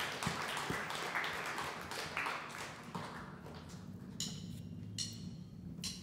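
Room noise and small knocks from people moving on stage, then, from about four seconds in, bright metallic ticks on a drum-kit cymbal a little under a second apart over a low steady hum: the drummer counting the band in before a song.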